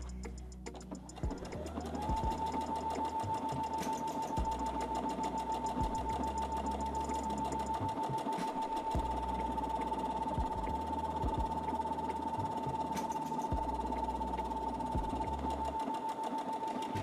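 Brother Innov-is A80 computerised sewing machine stitching a decorative leaf pattern. Its motor whine rises over about a second near the start, then holds steady with the rapid needle strokes.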